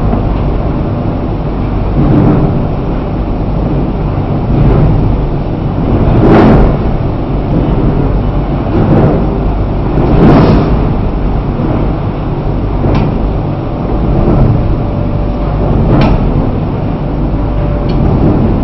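Aluminium dross cooling machine running: a loud, continuous low rumble that swells roughly every two seconds, with a few short sharp clicks.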